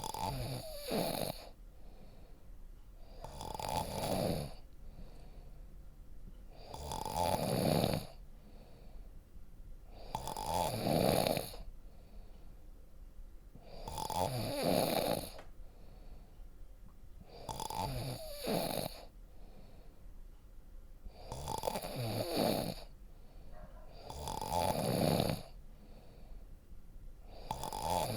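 A person snoring deeply, with evenly spaced snores about every three and a half seconds, each lasting about a second.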